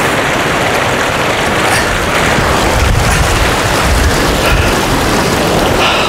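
Hot spring runoff rushing and pouring over rocks into a river: a steady, loud rush of water, with a deeper rumble swelling about three to four seconds in.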